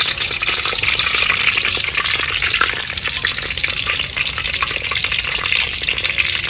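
Stuffed crab shells deep-frying in hot oil in a steel wok: a steady, crackling sizzle.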